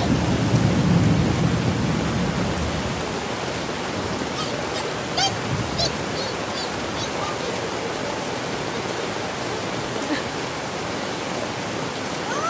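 Heavy rain pouring onto a concrete street, a steady loud hiss, with a low rumble in the first couple of seconds and a few faint high squeaks about five seconds in.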